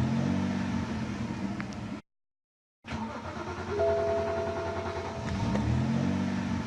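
BMW 525i's N52 straight-six being started twice. Each time a starter whine gives way to the engine catching, with the revs rising. There is a brief dead-silent cut between the two starts.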